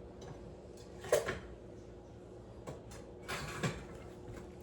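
Kitchen knives being put away: a sharp knock about a second in, a few light clicks, then a short clatter a little past the middle.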